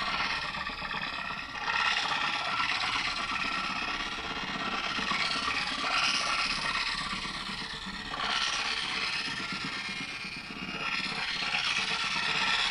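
Effects-pedal loop of a ring-modulated phrase chopped into very short grains by Particle and Fabrikat granular pedals: a dense, noisy texture that swells and eases back every two to three seconds. Heard through a phone mic.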